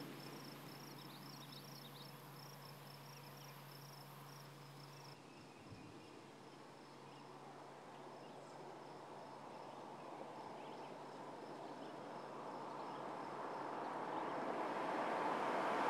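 Insects chirping in a steady high trill. Over the last several seconds the road and engine noise of a Jeep Compass swells steadily as the vehicle approaches.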